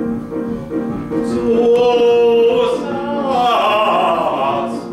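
A man singing over piano accompaniment: he holds one long note, then sings a wavering, sliding phrase near the end.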